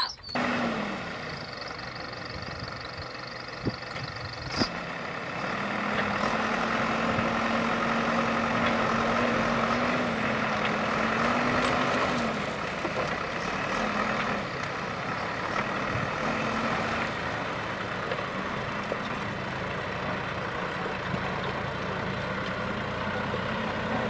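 JCB 3DX backhoe loader's diesel engine running, revving up about six seconds in and holding there for several seconds before dropping back to a lower speed. Two sharp knocks come around four seconds in.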